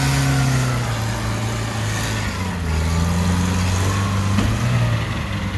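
UAZ Bukhanka van's engine running as it drives. Its pitch drops during the first second or so and rises again about two and a half seconds in.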